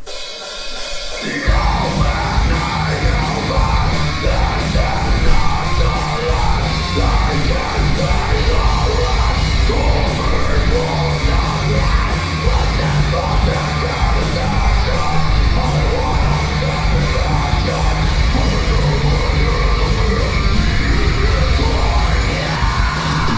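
Live heavy metal band playing: distorted electric guitars, bass and drums with a screamed vocal. The full band comes in about a second and a half in.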